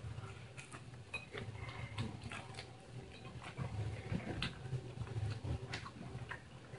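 A person chewing a bite of hot-sauced chicken wing: faint, irregular wet mouth clicks and smacks.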